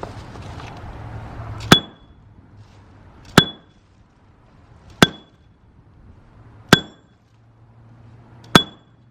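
A metal hand tool striking masonry five times at a steady pace, about every second and a half to two seconds. Each blow is a sharp, loud clang with a brief high metallic ring: hand-chipping at the basement's brick and concrete.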